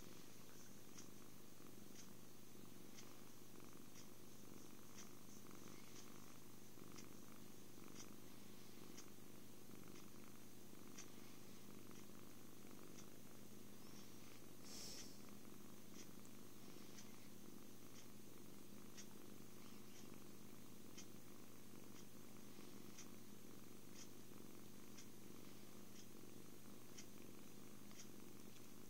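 A kitten purring steadily and contentedly while being petted.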